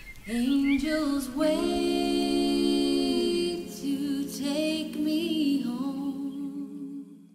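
Closing bars of a slow folk song: long held sung notes, several sounding together, with a waver in the pitch, fading out near the end.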